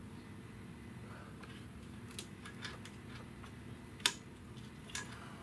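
A few light metallic clicks and ticks of Knipex pliers gripping and twisting a tight hose to break its seal, the sharpest about four seconds in, over a steady low hum.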